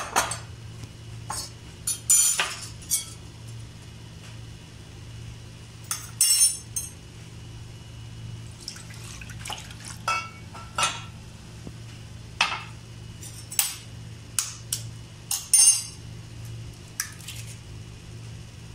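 Glass bowls and dishes clinking and knocking against each other and the countertop, in irregular sharp taps, as ingredients are handled. A steady low hum runs underneath.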